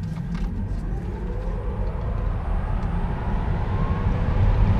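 Tesla Model 3 accelerating at full power: a faint electric-motor whine climbs steadily in pitch over a low road and tyre rumble that grows louder, heard inside the cabin.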